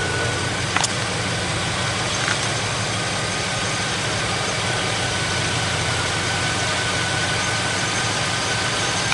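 C5 Corvette's V8 engine idling steadily, with a sharp click a little under a second in.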